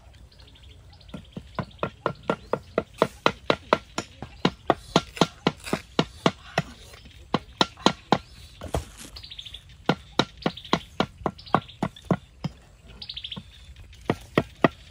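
Cleaver chopping raw pork on a wooden chopping block: a steady run of hard knocks about four a second, pausing briefly twice. Birds chirp faintly behind it.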